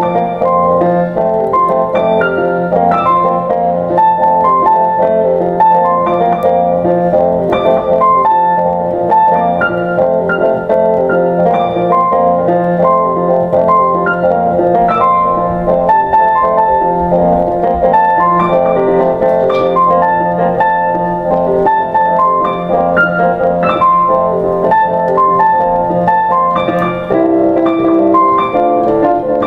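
Background piano music: a steady stream of short notes over a held low note.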